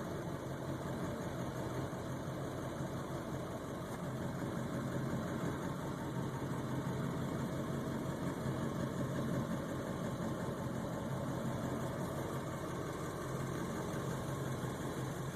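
Ford 7.3 Power Stroke turbodiesel V8 idling steadily, its level swelling slightly partway through. The owner says the idle is higher than normal and sometimes rough, and suspects a bad ICP sensor or fuel pressure regulator.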